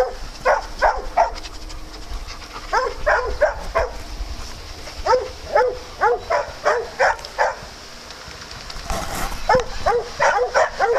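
A dog barking in volleys of several quick barks, with short pauses between the volleys.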